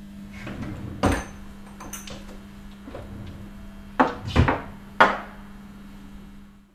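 Several sharp knocks and clatters of objects handled on a wooden desk, the loudest about four and five seconds in, over a faint steady low hum.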